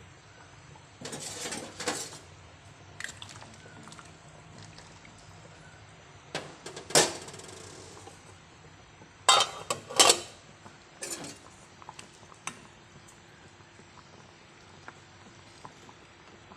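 Metal cookware and utensils clinking and clattering in a few separate bursts: about a second in, around seven seconds, loudest in a pair near ten seconds, with smaller clinks after.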